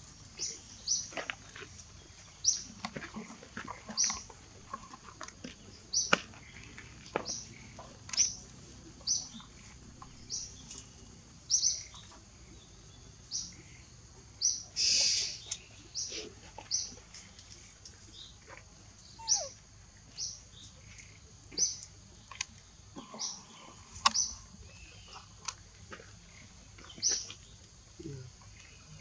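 A bird repeating a short, high chirp about once a second, with one longer, noisier call about halfway through.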